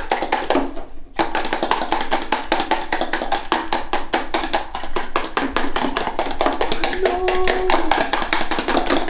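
A fork beating a raw egg in a clear plastic bowl, making quick, steady clicking as the tines strike the bowl.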